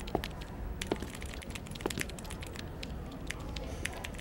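Computer keyboard being typed on: irregular, quick key clicks over a steady low room hum.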